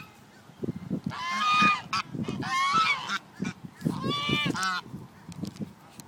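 Geese honking in three short bouts of rapid calls, about a second and a half apart.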